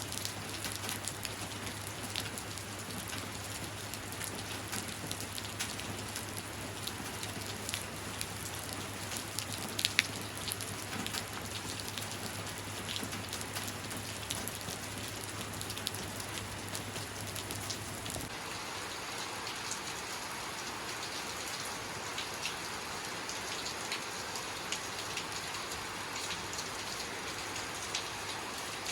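Steady rain falling, with many individual drops ticking on a surface and one sharper drip about a third of the way in. A low steady hum sits under the rain until about two-thirds through, where it drops out and the rain sound changes slightly.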